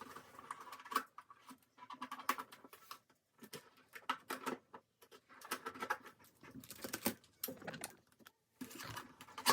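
Irregular light taps, clicks and rustles of small objects being handled.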